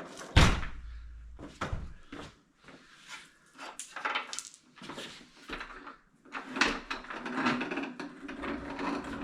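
Sharp knocks and clanks, the loudest about half a second in, as a tractor grader blade is worked on, followed by a longer stretch of scraping and rattling in the second half.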